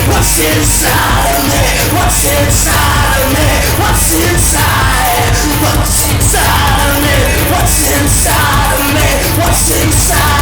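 Loud, dense rock music with a vocal over a steady beat.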